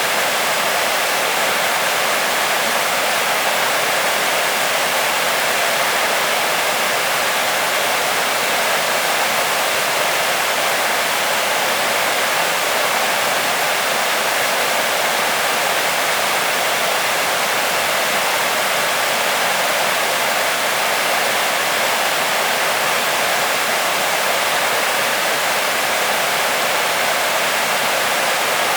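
Waterfall: water falling and splashing in a steady, loud rush, mostly hiss with little low rumble.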